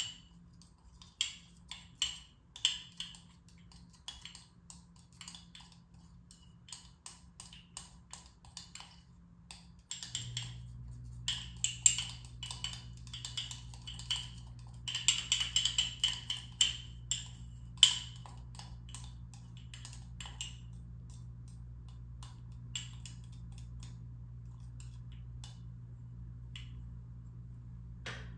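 Purple oil paint being mixed in a small glass jar: a tool clicking and scraping against the glass in quick, irregular taps that come in clusters and thin out in the last third. A steady low hum starts about ten seconds in.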